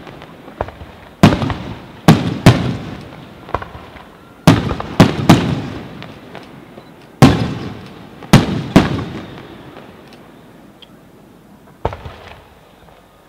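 Aerial firework shells bursting overhead: a series of sharp bangs, often two in quick succession, each followed by a rolling echo. The bangs thin out after about nine seconds, with one last smaller bang near the end.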